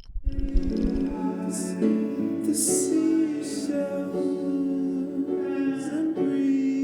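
Music: a layered texture of sustained, held tones that shift slowly in pitch, with a few brief airy hiss swells over the top.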